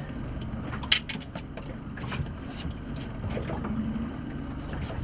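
Water slapping and sloshing against a small boat's hull over a steady low rumble, with a sharp knock about a second in followed by a few lighter clicks and splashes.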